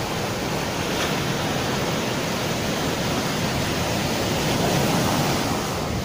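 Sea surf breaking and washing up over a rocky, pebbly shore: a steady rush of water that swells a little about five seconds in.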